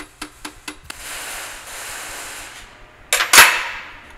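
Light, quick taps of a claw hammer driving a roll pin into the gearbox selector, about four taps in the first second. A soft hiss follows, then a loud bang about three seconds in.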